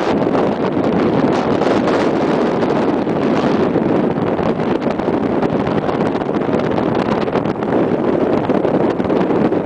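Strong wind buffeting the microphone, a steady loud rush with constant crackling gusts.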